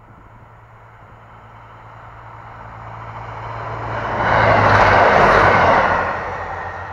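Passenger train approaching and passing close by at speed: the rumble and rush of its wheels on the rails builds over about four seconds, peaks as the train goes past, then fades.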